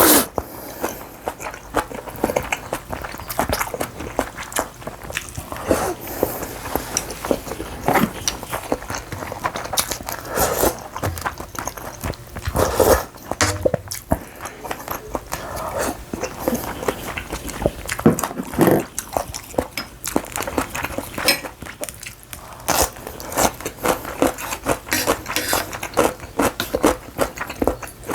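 Close-up eating sounds of noodle soup and rice balls: chewing and slurping, with many short sharp clicks throughout and several longer slurps.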